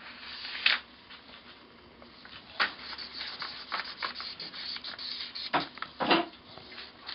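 Crayon scribbling on paper: a rough, scratchy rubbing, strokes coming thick in the middle, with a few sharp clicks in between.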